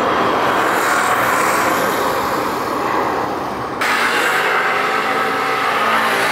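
Jet airliner engines running, a steady loud rush. Nearly four seconds in the sound changes abruptly, and a steadier engine hum follows.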